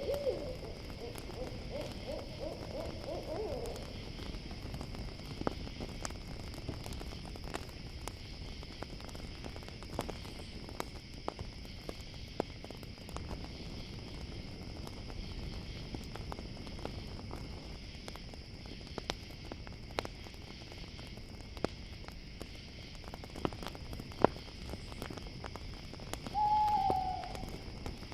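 Campfire crackling with a steady chorus of crickets, and an owl calling: a wavering, trembling call over the first few seconds and a short falling hoot near the end.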